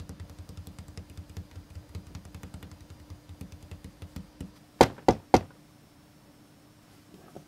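A rapid run of soft, low thumps, about six a second, growing fainter. Then, about five seconds in, three loud knocks on a door in quick succession.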